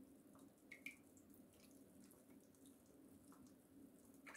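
Near silence: a faint steady hum with a few small clicks, a pair about a second in and another near the end.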